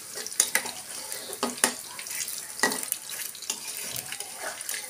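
Battered tempe mendoan deep-frying in hot oil in a wok: steady sizzling with many scattered sharp crackles, and a spatula stirring and scraping in the pan.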